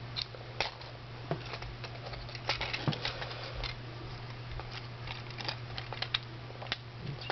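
Small plastic clicks and taps from a plastic Transformers action figure as its parts are handled, clipped and folded during transformation: a dozen or so irregular clicks, the loudest about three seconds in.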